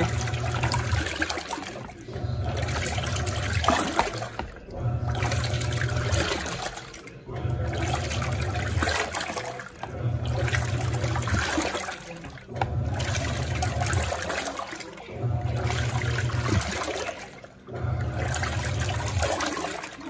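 Panasonic NA-F140B6 top-loading washing machine agitating a full tub of water in its tub-cleaning cycle. The motor hums in strokes of about a second and a half, pausing and reversing about every two and a half seconds, with the water churning and sloshing throughout.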